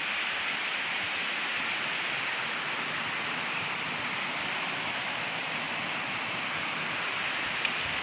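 Steady rushing of water from a small waterfall cascading over rock slabs into a pool.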